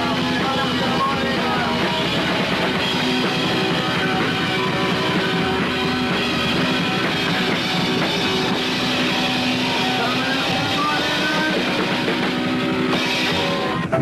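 Punk rock music playing: distorted electric guitars over a steady drum kit beat, with sung lines.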